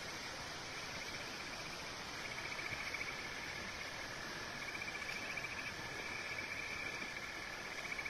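Steady rush of a flowing river, with insects trilling high and fast over it, the trill swelling in a few stretches.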